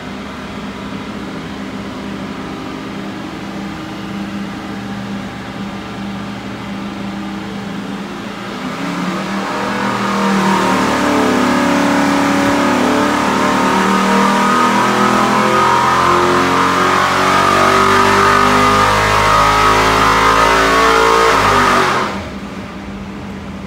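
V8 race engine on an engine dyno, running steadily at part throttle, then opened up about nine seconds in for a full-throttle pull. Its note climbs steadily from about 4,000 to 6,400 rpm, and near the end the throttle is chopped and it drops back suddenly.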